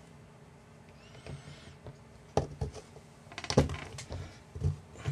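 Small clicks and knocks of frame standoffs and a carbon-fibre quadcopter plate being handled and pressed into place. They come irregularly, starting a little over two seconds in.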